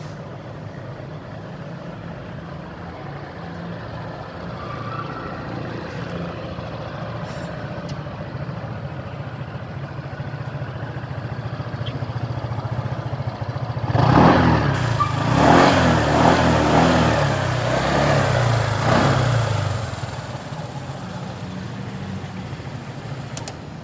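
Honda ADV 150 scooter's single-cylinder engine idling steadily, then revved in a series of throttle blips for about six seconds, each rising and falling in pitch, before dropping back to idle.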